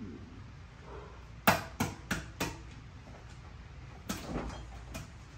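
Four quick, sharp kitchen taps about a third of a second apart, then a few softer knocks near the end, as food is handled in foil pans on a counter.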